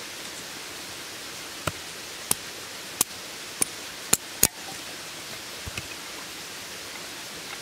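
Hatchet chopping kindling on a tree stump to prepare a campfire: six sharp strikes about half a second apart, the last two quicker, then a couple of faint knocks as the wood is handled. A steady hiss runs underneath.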